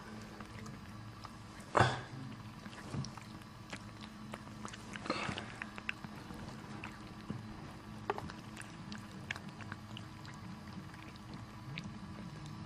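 Sounds of a mother cat during the birth of her kittens, faint over a steady low hum. A sharp knock about two seconds in is the loudest sound, and a short rasping noise comes about five seconds in, among small scattered clicks.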